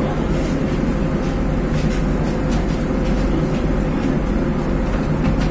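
LiAZ 5292.21 city bus's diesel engine idling steadily while the bus stands still, heard from inside the passenger cabin as an even low hum with a faint steady whine above it.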